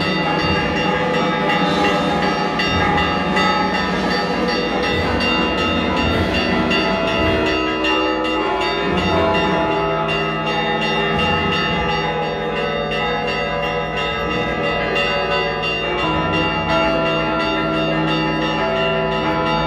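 Church bells ringing continuously, several bells sounding over one another in a dense, unbroken peal.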